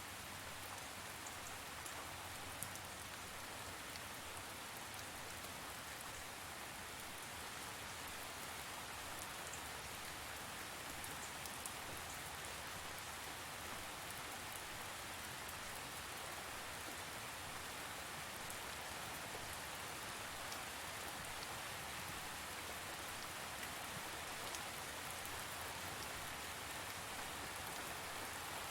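Steady rain falling on a surface, a constant hiss with scattered sharp drop ticks.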